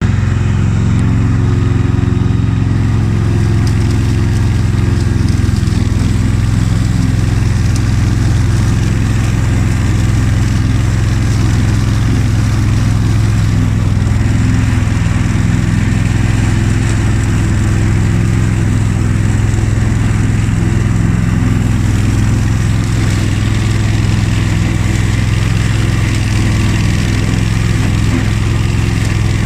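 Honda HF2622 riding lawn tractor's engine running steadily at a constant speed, with a strong low hum.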